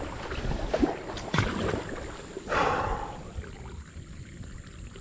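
Kayak paddling: a couple of sharp knocks, then a splash of a paddle blade through the water about halfway through, over a low rumble of wind on the microphone.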